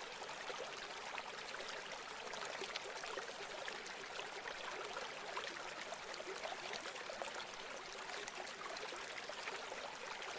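A river or stream flowing steadily over stones, an even rushing babble with small splashes and trickles throughout.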